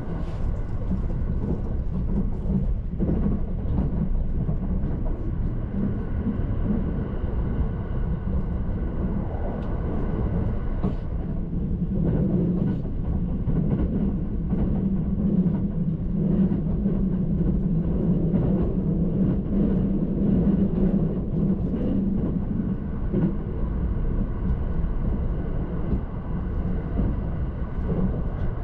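Steady running noise of an E353-series Azusa limited express train heard from inside the Green car: a continuous low rumble of wheels on rail with a faint steady whine above it, swelling a little around the middle.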